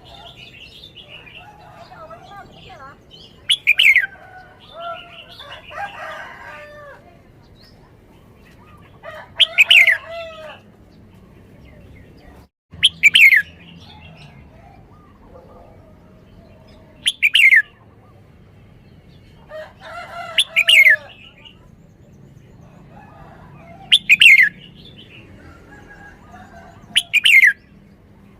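Red-whiskered bulbul singing: seven loud, short phrases of falling whistled notes, repeated about every three to four seconds, with softer chattering notes between them.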